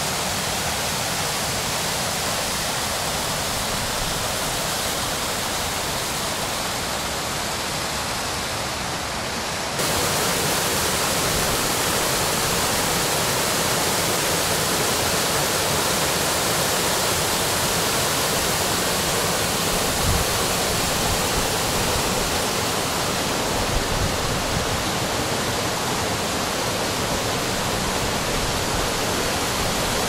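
Steady rush of a mountain stream's waterfalls, jumping abruptly louder about ten seconds in, with a couple of faint knocks later on.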